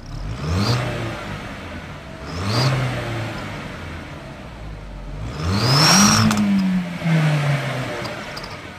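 Car engine blipped three times, the third rev longest and loudest. Each rev carries a high whistle from a fake turbo whistler fitted in the exhaust, clearest as a rising whistle on the last rev.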